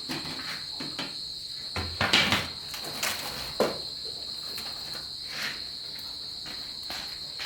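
Crickets trilling steadily, a continuous high-pitched chirr, with a handful of knocks and clatters on top, the loudest about two seconds in. The trilling cuts off abruptly at the very end.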